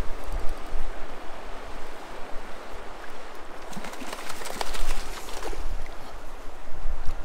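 Wind buffeting the microphone in gusts, over the steady rush of a river running through a shallow riffle.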